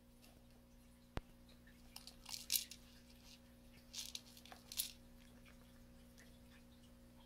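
Faint scratchy rustling in two short spells as a cat bites and paws a stuffed fabric fish toy, over a steady low electrical hum. A single sharp click comes about a second in.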